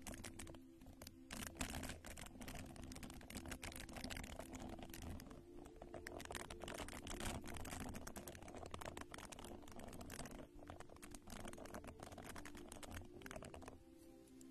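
Close-miked ASMR tapping and crackling: dense, rapid, irregular clicks from a round skin-care container handled and tapped right at the microphone.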